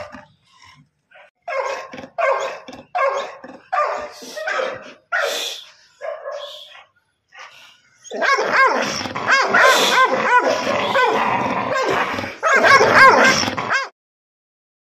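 Pit bull giving a string of short pitched cries, about nine in five seconds, then a long wavering howl from about eight seconds in that breaks briefly and resumes before cutting off.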